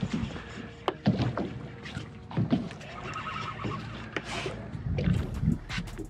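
Water slapping and lapping against the hull of a small fishing boat, with scattered knocks and handling noises.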